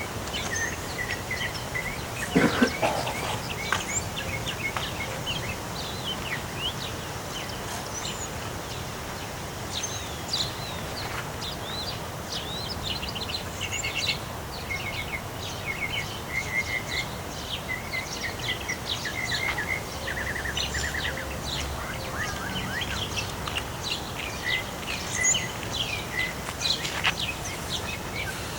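Many birds chirping and trilling over a steady hiss of wind in a storm. A brief rising sound stands out about two seconds in.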